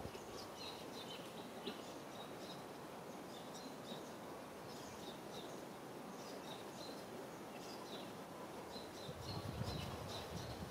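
Outdoor ambience with small birds chirping over and over in short, high notes, over a steady hiss. A low rumbling comes in near the end.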